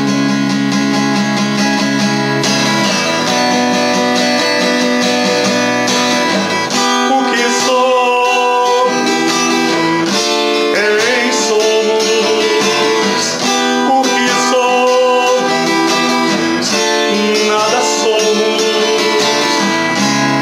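Acoustic guitar strummed steadily, with a man singing over it from about seven seconds in.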